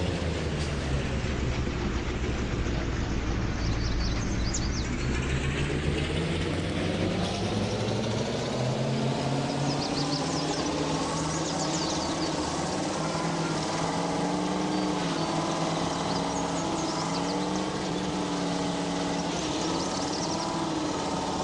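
GAZ vehicle's engine running under way. Its pitch drops in the first few seconds, climbs again a few seconds later, then holds steady.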